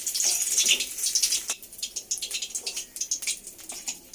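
Batter-coated paneer frying in hot oil in a kadai: a steady sizzle full of small crackles, dropping to a fainter sizzle with scattered pops after about a second and a half.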